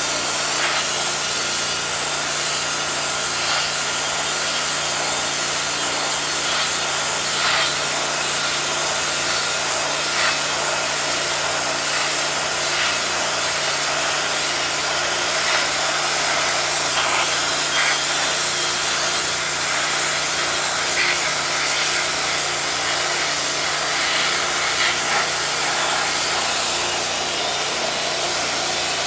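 Hot-water pressure washer's high-pressure jet blasting a metal plate and stripping its paint: a constant hiss of spray on metal, with a steady low hum underneath.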